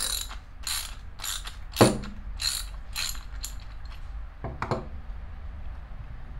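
Ratcheting clicks in short strokes, about one every half second or so, as a 9/16 wrench is worked back and forth on a nut of a Penn 704Z spinning reel, with a sharper click near two seconds in. Two more clicks come near the end.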